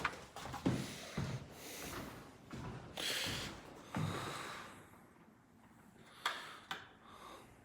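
A person climbing a flight of stairs: irregular footsteps and short, heavy breaths through the nose, with a quieter pause about two-thirds of the way through.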